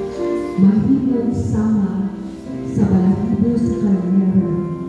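Voices singing a slow worship song, with long held notes.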